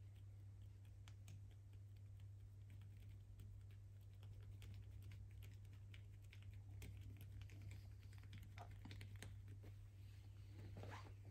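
Fingers working the scalp and running through long hair, giving faint, irregular crackling and rustling. A low steady hum runs underneath.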